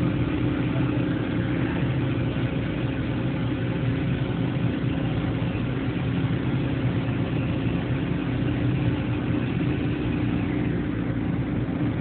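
Toyoda FA400 horizontal machining center running, with its spindle turning a tool at the workpiece: a steady machine hum with several held tones under an even mechanical noise.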